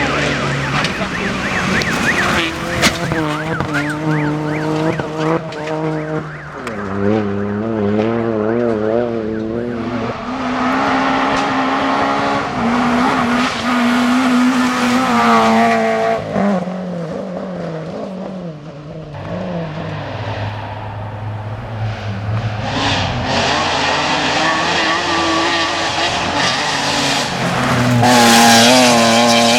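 Rally car engine running hard on a tarmac stage, revving up and down with gear changes. It grows loudest near the end as the car comes closest.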